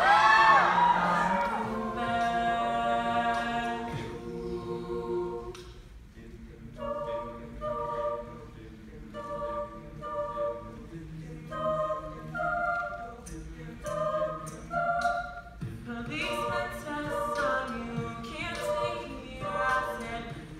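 Mixed-voice a cappella group singing: held chords at first, then short repeated backing chords from about seven seconds in, with light vocal-percussion ticks.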